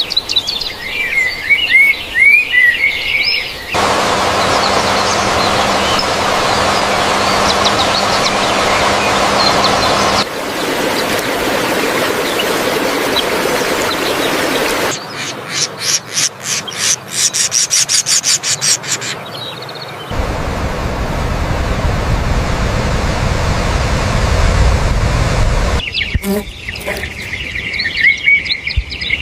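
Birds chirping in short, quick calls, broken up by abrupt cuts to stretches of steady noise and a rapid run of repeated sharp sounds.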